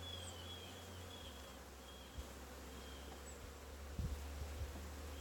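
Faint, steady buzzing of honey bees from an opened hive during a frame inspection, with a few soft knocks about four seconds in.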